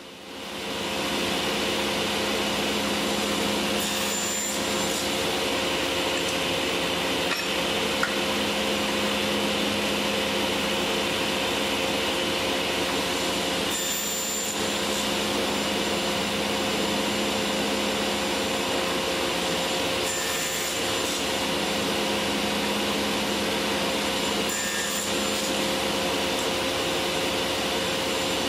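Table saw with a 10-inch aluminum-cutting blade spinning up and then running steadily, making a few brief crosscuts through small 6061 aluminum blanks, each cut a short brighter burst over the steady hum and hiss.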